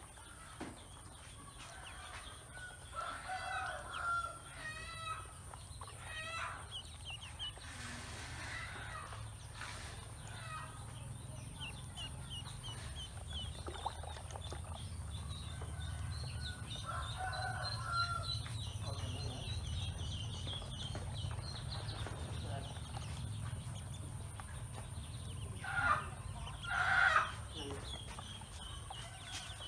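Ducklings peeping, a quick run of high peeps through the middle. Lower, louder calls of adult poultry break in at times and are loudest near the end, over a steady low hum.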